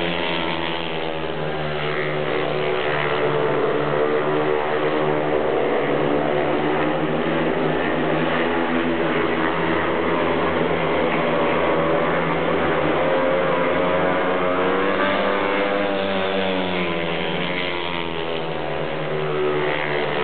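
A pack of speedway motorcycles racing, their 500 cc single-cylinder methanol engines running hard without a break. The engine pitch rises and falls again and again as the riders drive into and out of the turns.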